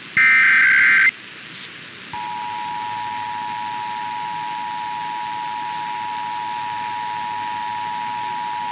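Emergency Alert System tones. First comes the last of the three SAME header data bursts, a harsh screech of about a second. After a short gap, the two-tone attention signal (853 and 960 Hz sounded together) starts about two seconds in and holds steady. Together they announce a required monthly test alert.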